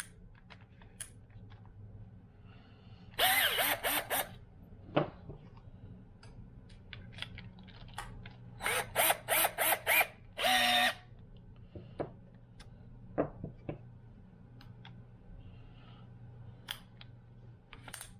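Small cordless drill driving screws in short bursts: a run of quick pulses about three seconds in, one more burst a second later, then five or six short bursts and a slightly longer one around the middle. Light clicks of handling between them.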